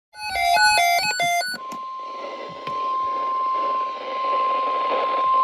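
A quick run of electronic chime beeps, several notes sounding together and changing about every fifth of a second, then a single steady alert tone held over radio static: a weather-radio warning alarm tone ahead of a National Weather Service alert broadcast.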